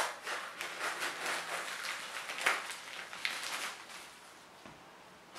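Scissors cutting open a white mailer bag: a sharp snip at the start, then a run of crinkling cuts with a couple of sharper snips. It fades to quiet about four seconds in.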